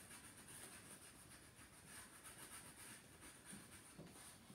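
Faint scratching of a crayon rubbed back and forth on a paper plate, colouring in, in quick repeated strokes.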